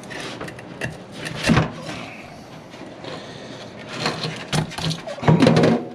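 Irregular scraping and knocking as a hook blade works along the hard, armor-plated belly of a plecostomus (armored catfish) and the fish shifts against a stainless steel sink. There is a sharp scrape about a second and a half in, and the loudest scraping comes near the end.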